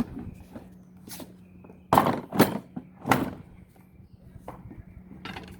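A few sudden thunks and knocks of hard plastic toolboxes being handled, over a low steady hum.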